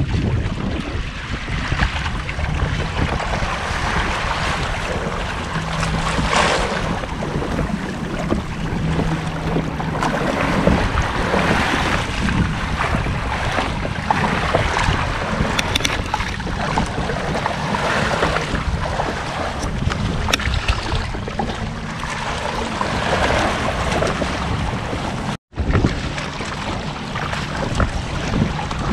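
Water rushing and splashing along the hulls of a Hobie Adventure Island kayak-trimaran sailing, with wind buffeting the microphone. The sound cuts out for an instant about 25 seconds in.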